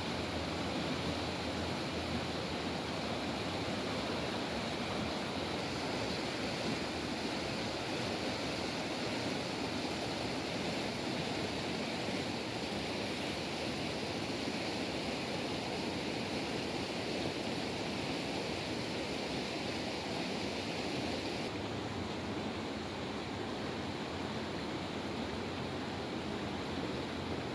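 Shallow stream rushing and splashing over a stone-and-concrete channel bed in white water: a steady, even rush.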